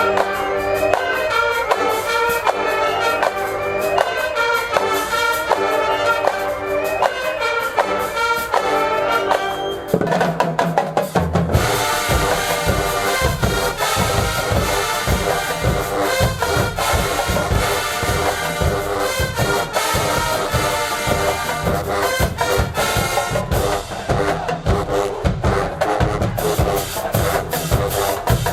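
Marching band brass section playing a melody of short punchy notes. About eleven seconds in, the low brass and drumline come in, with a steady pounding beat.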